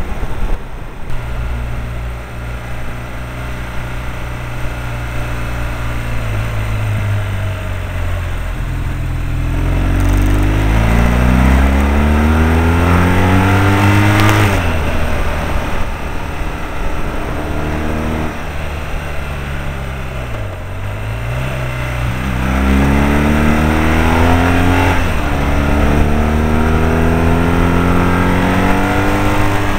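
Motorcycle engine heard from on board, running under load through bends; twice it accelerates hard, the pitch climbing for several seconds, then drops back as the throttle closes.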